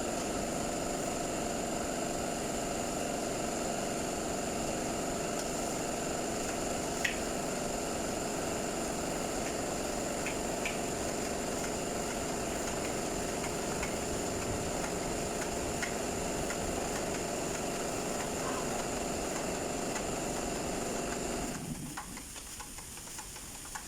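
A machine running steadily with a high whine and hiss, cutting off abruptly near the end, with a few faint clicks over it.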